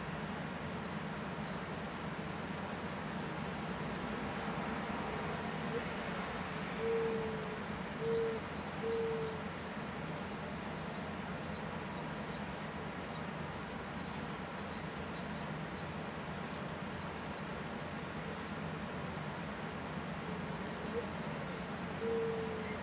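A mourning dove cooing: a short rising coo, then one long and two shorter low coos, about a third of the way in, with the same song starting again near the end. Sparrows chirp in quick, high clusters throughout, over a steady low background hum.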